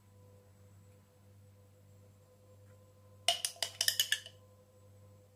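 Metal teaspoon clinking and scraping against the inside of a glass jar: a quick run of sharp clinks about three seconds in, lasting about a second, over a faint steady hum.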